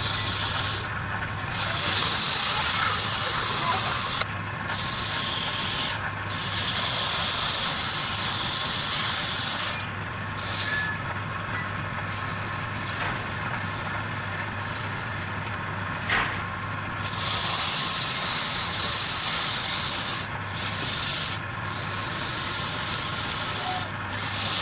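Sandpaper held by hand against a wooden vessel spinning on a lathe: a steady hiss that comes and goes as the paper is pressed on and lifted off, softer for several seconds in the middle. A steady low hum runs underneath.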